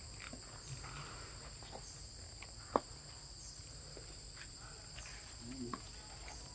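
Steady chorus of insects in the forest, two even high-pitched tones that never break, with one sharp click about three seconds in.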